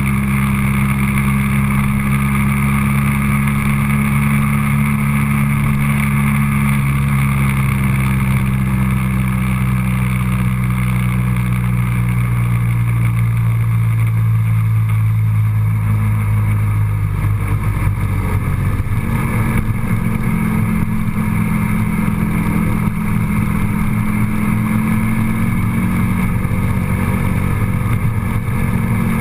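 Road vehicle engine droning steadily during a drive, its pitch slowly falling over the first half, turning rough for a moment, then rising again.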